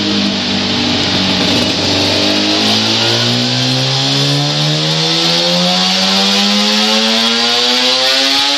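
Suzuki RG500 Gamma's two-stroke square-four engine running under load on a dyno. It holds a steady note, then from about two and a half seconds in the revs climb smoothly and steadily as the power run through the gear begins.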